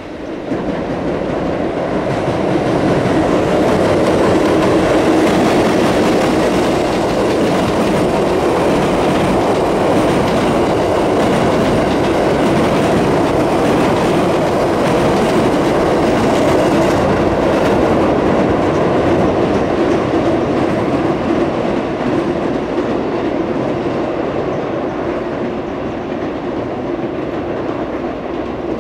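An EF81 electric locomotive hauling eight 205 series 500 commuter cars across a steel girder bridge. The wheels make a loud, steady rumble with clickety-clack over the rail joints, easing slightly near the end as the train moves away.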